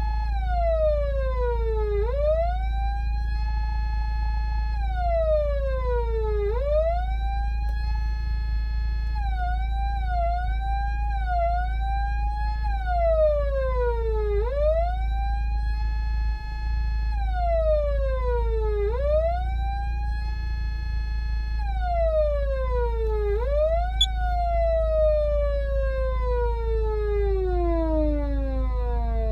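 Patlite SAP500BZ electronic siren amplifier sounding a wail tone: the pitch rises, holds, then falls, repeating about every four to five seconds, with a brief wobbling stretch about ten seconds in. About two-thirds through there is a click and the tone then falls slowly and steadily in pitch, winding down. A steady low hum runs underneath.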